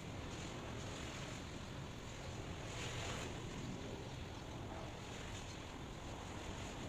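Steady rushing white noise with no distinct events, swelling slightly about three seconds in.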